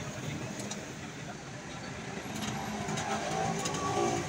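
Street traffic noise with a motor vehicle's engine running nearby, growing louder in the second half.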